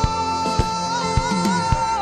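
Gospel worship music: one voice holds a single long high note with a slight waver over a band with a steady drum beat.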